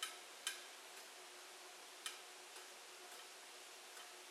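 A few faint, sharp ticks at irregular intervals, some about half a second apart, over a quiet steady hiss.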